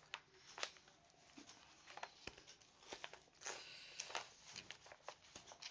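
Faint handling sounds: soft rustles and scattered light clicks as a printed cross-stitch canvas is handled, with quiet stretches between.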